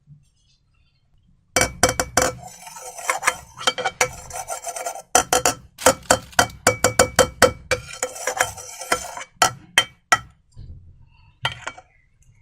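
Clear slime squished and worked by hand close to the microphone: a run of quick, sticky clicks and pops. It starts about a second and a half in, breaks off briefly near the middle, and stops near the end.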